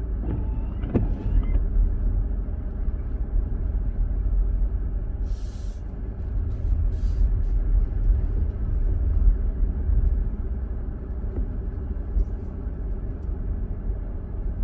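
A car running, heard from inside the cabin: a steady low rumble, with a brief rising squeak about a second in.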